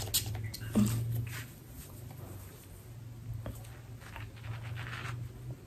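NYX makeup setting spray's pump bottle giving a short misting hiss right at the start. After that only faint handling noises over a low steady hum.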